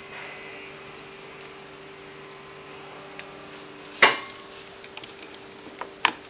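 Metal tools and small steel parts clinking on a workbench: one sharp clink about four seconds in, then a few lighter clicks near the end as circlip pliers are set onto the crankshaft, over a steady low hum.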